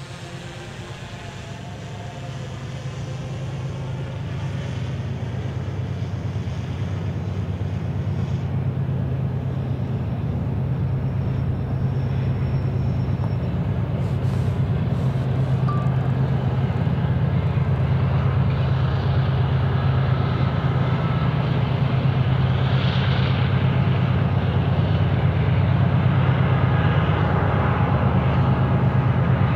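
Steady low mechanical hum, like engine or motor noise, swelling over the first several seconds and then holding steady.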